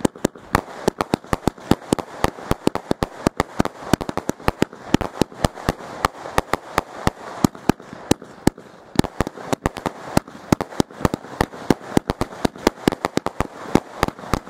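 Vulcan 1051 Compound X firework cake firing continuously: a rapid, uneven string of sharp pops and bangs, several a second, from shots launching and bursting.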